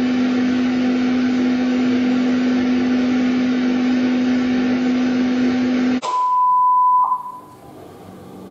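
Loud TV static hiss with a steady low electrical buzz, cutting off about six seconds in. It gives way to a steady high-pitched test-tone beep of the kind that goes with colour bars, which lasts about a second and then fades.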